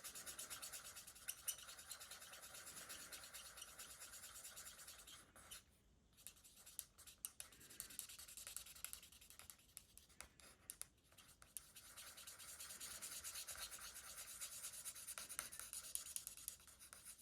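Faint scratchy rubbing of a marker pen's tip colouring in a stamped image on card, in many short strokes, dropping away briefly a couple of times in the middle.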